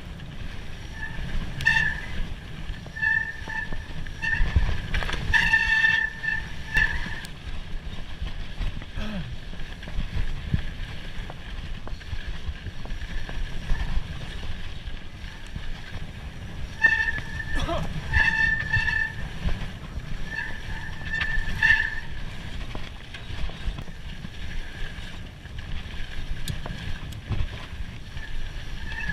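Mountain bike ridden along a dirt trail: a steady rumble of tyres and wind with scattered knocks and rattles. A steady high buzz comes and goes several times.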